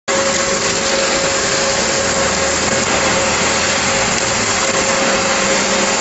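Trailer concrete mixer pump running: a steady, loud machine noise with a constant whine through it.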